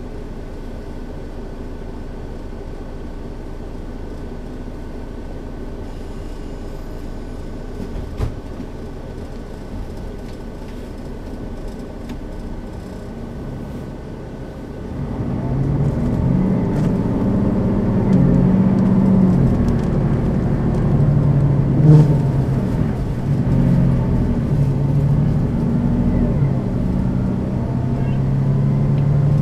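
Setra S 415 NF city bus's diesel engine running at a standstill, steady at first; about halfway through it grows louder and fuller, with uneven shifts in pitch, and stays up. A short sharp knock about three-quarters of the way through.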